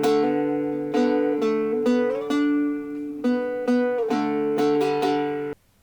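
Intro music of a plucked string instrument playing ringing chords, a fresh pluck every half second or so; it cuts off abruptly near the end.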